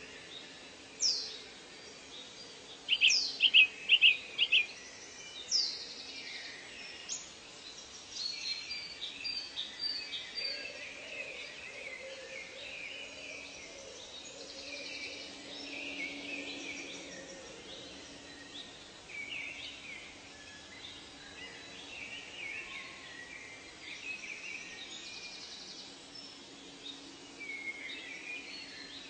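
Several birds calling and chirping in forest ambience over a faint steady drone. The loudest calls are a few sharp falling whistles in the first six seconds and a quick run of four notes about three seconds in.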